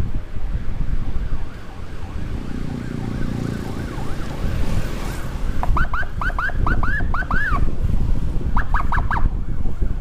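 Electronic emergency siren giving two bursts of quick rising-and-falling chirps, about eight in the first and four in the second, over the wind and road noise of a moving motorcycle.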